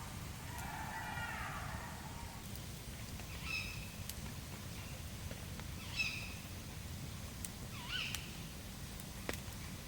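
An animal calling: a longer wavering call for the first two seconds, then three short high calls a couple of seconds apart. Under it runs a steady low rumble with scattered sharp ticks.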